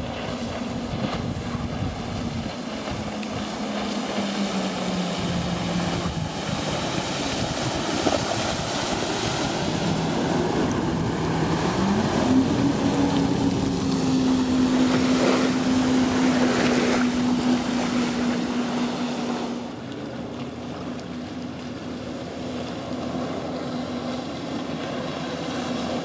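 Jet ski engine running close by, with the hiss of its spray. The engine's pitch dips a little, then rises about twelve seconds in as it speeds up and holds there. The sound drops away suddenly after about twenty seconds as it rides off.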